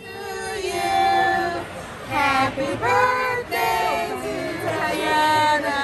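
Voices singing unaccompanied, a child's and a woman's, in long held notes that slide in pitch.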